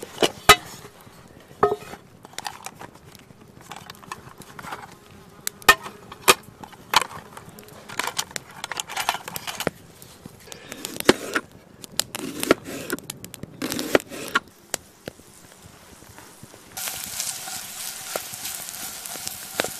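Metal clinks and knocks of a frying pan and the camp-stove gear packed inside it being handled and unpacked. About seventeen seconds in, a steady sizzle starts: sliced onion and garlic frying in the hot pan.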